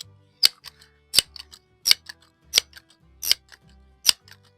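Background music with a sharp clicking beat, about three hits every two seconds, over low sustained notes.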